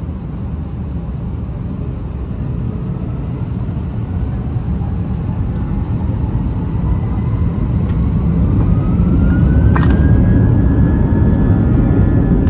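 Airbus A320's IAE V2500 turbofan engines spooling up to takeoff power, heard from the cabin. A whine rises steadily in pitch, then levels off about ten seconds in, over a deep rumble that keeps growing louder as the takeoff roll begins.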